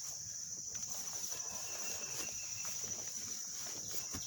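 A steady, high-pitched insect chorus, with irregular rustling and soft footsteps through garden plants between about one and three and a half seconds in.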